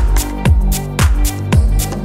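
Background music with a steady, driving beat: a deep kick drum about twice a second under sharp percussion and held synth tones.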